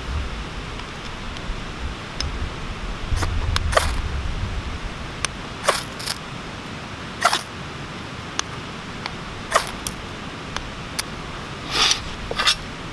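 Ferrocerium rod struck with a steel scraper over wood shavings to throw sparks: about eight short, sharp scrapes at irregular intervals.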